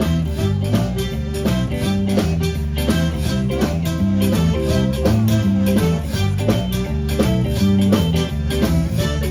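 A band playing an instrumental passage of a blues-rock song, with guitar to the fore over bass and drums keeping a steady beat.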